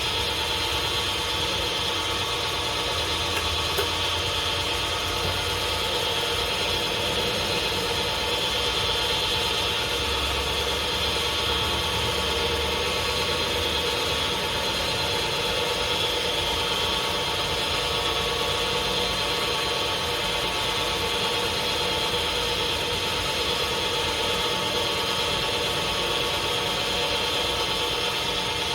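Lathe running steadily, a constant machine hum with several steady whining tones and no change in speed.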